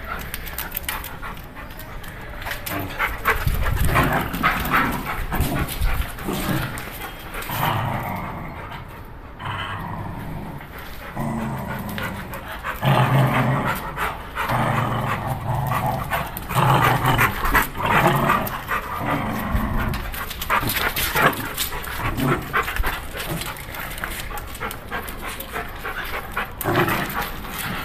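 A pit bull and a small puppy playing tug over a rubber chew toy: dogs panting, with short low growls through the middle of the play.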